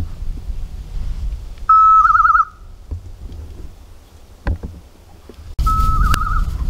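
An electronic beeper collar on a hunting dog sounds twice, each time a steady high beep that breaks into a fast warbling trill. Wind rumbles on the microphone throughout, with a single click about four and a half seconds in.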